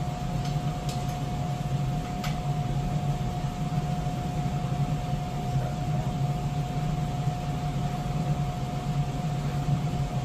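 A steady machine hum with a high, even tone running through it, and a few faint clicks in the first couple of seconds.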